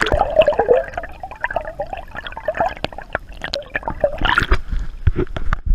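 Water splashing and gurgling close to the microphone, with many quick splashes and sloshes.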